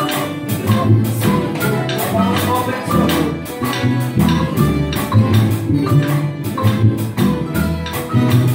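Plucked-string ensemble of acoustic guitars and small mandolin-type instruments playing a piece together, with a steady strummed rhythm over a line of low notes.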